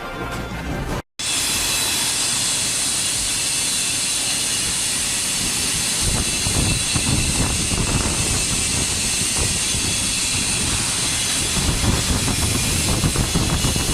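TIG welding arc from an Omega 350T mini TIG welder, a steady loud hiss with a rough crackle underneath, starting abruptly after a brief gap about a second in.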